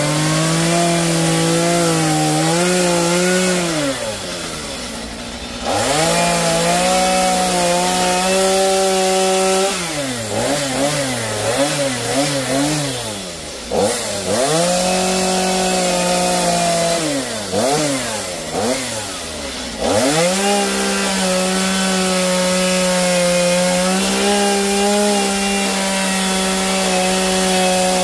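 Gas chainsaw cutting into a Western red cedar log. It runs at full throttle in long stretches and falls back three times to a wavering idle, blipping the throttle, before revving up again.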